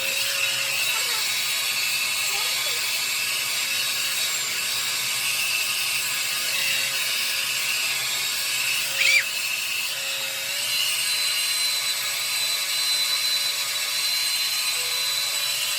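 Handheld hair dryer blowing steadily: a motor whine over rushing air, switched on abruptly at the start. A brief, louder high-pitched squeak about nine seconds in.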